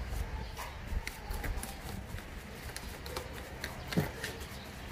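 Light scratchy brushing and small clicks as a bristle brush works protectant over rubber hoses and plastic engine parts, with a brief pitched sound about four seconds in.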